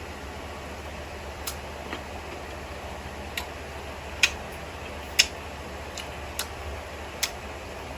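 Eating sounds: a handful of short, sharp mouth clicks and smacks at uneven intervals, the loudest two near the middle, over a steady low hum.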